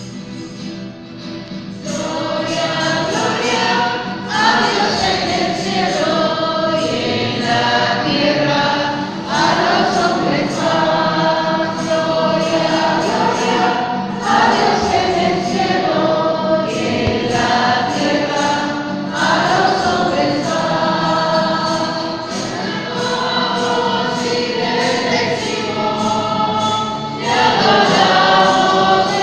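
Choir singing a Christian hymn in long phrases of a few seconds each, getting louder about two seconds in.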